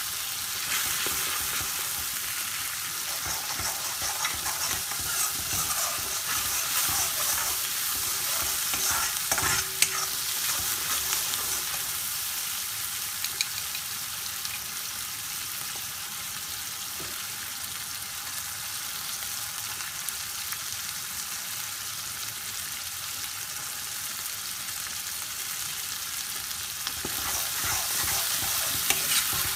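Ground spices frying in oil in a metal karahi, sizzling steadily while a metal spoon stirs and scrapes the pan with scattered clicks. Near the end the sizzle gets louder as tomato puree mixed with water goes into the hot pan.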